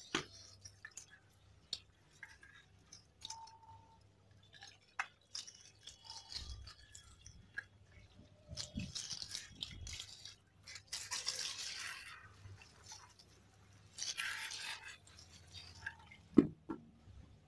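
Faint scrubbing, rubbing and water splashing as a motorcycle helmet is washed by hand. There are scattered small clicks and knocks, a few short spells of rubbing about halfway through and later, and a sharper knock near the end.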